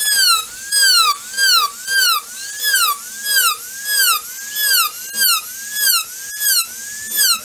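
Handheld electric rotary tool with a small cutting disc running, a high whine whose pitch rises and falls about twice a second.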